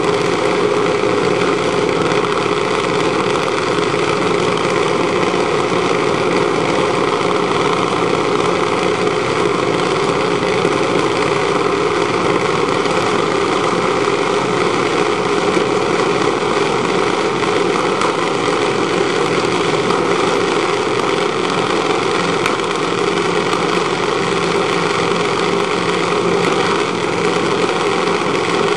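Junior dragster's small single-cylinder engine idling steadily at the starting line, with no revving.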